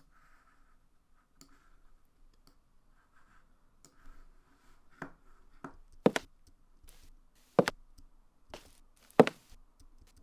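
Footstep sound effects played back from an editing timeline: a series of sharp steps on a hard floor in the second half, a few seconds apart. Faint mouse clicks come before them.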